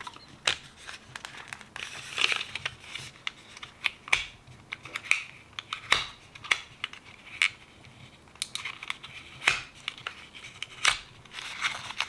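A small cardboard mascara box being handled and opened by hand: irregular crinkling and scraping of the card flap, with scattered sharp clicks and ticks.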